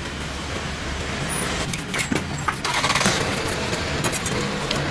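Low steady rumble of a vehicle engine running, with a few light clicks; from a little past halfway a rasping scrape joins it, a knife being drawn over the sunfish's rough skin.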